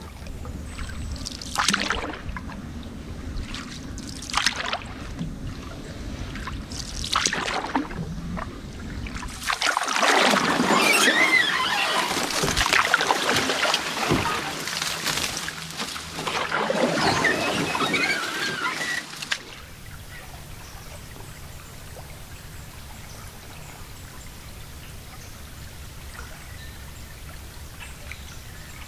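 Canoe paddled through water, with a few paddle strokes and splashes in the first several seconds. Then about ten seconds of loud rustling and scraping as the hull pushes through dense cattails and reeds, which stops abruptly. After that it is quieter.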